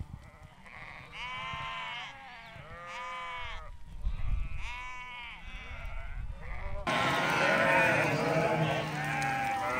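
Sheep bleating: a few separate bleats one after another, then from about seven seconds in a sudden, louder chorus of many sheep bleating at once.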